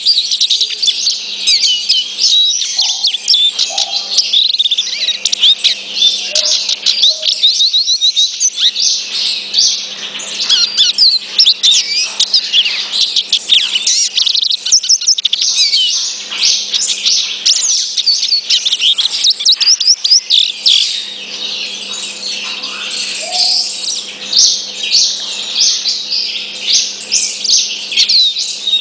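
Male lesser goldfinch (black-backed 'dominico capita negra') singing: a long, rapid, jumbled twittering song of high chirps and trills that runs on almost without pause.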